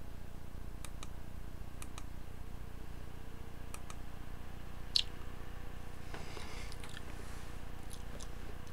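Computer mouse clicking: a few spaced clicks, most heard as a quick press-and-release pair, the sharpest about five seconds in, over a steady low hum.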